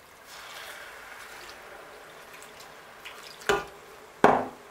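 A thin stream of water poured into a stainless steel pot of stiff water fufu dough, adding a little water to loosen it as it cooks, trickling for about three seconds. Then two sharp knocks near the end, a moment apart.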